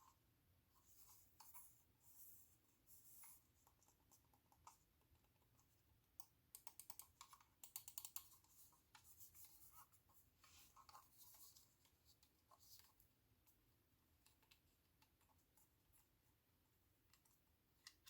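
Faint, scattered clicks and scratching from a computer keyboard being handled during unboxing, with a quick run of rapid clicks about seven seconds in.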